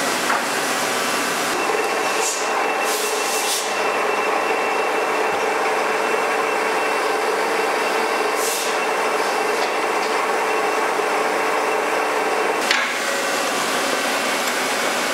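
Cadillac 20 by 100 inch engine lathe running and turning a metal part: a steady machine hum with a thin whine, with a few brief higher hissing passes of the tool cutting. The whine drops out near the end.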